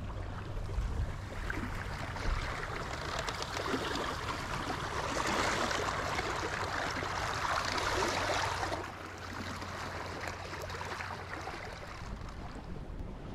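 Water rushing and splashing along the hull of a small wooden sailboat under sail, building to its loudest in the middle, then dropping suddenly about two-thirds of the way through to a softer wash.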